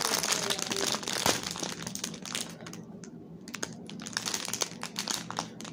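Crinkly plastic packaging being handled: a rapid run of crackles that thins out about halfway through, then picks up again.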